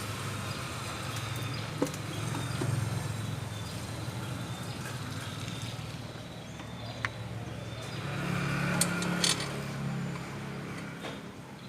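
A motor vehicle engine running with a steady low hum that swells for a couple of seconds about two-thirds of the way in, with a few sharp metallic clicks.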